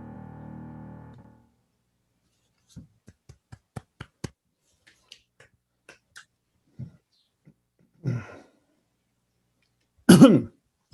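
The last chord of a song's instrumental accompaniment rings on and fades out about a second in. It is followed by a run of faint clicks, a few small scattered noises and a brief loud noise near the end.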